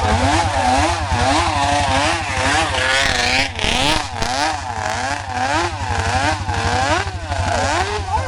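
Classic racing motorcycle engine revved again and again in quick blips, its pitch rising and falling about twice a second over a steady rapid firing beat.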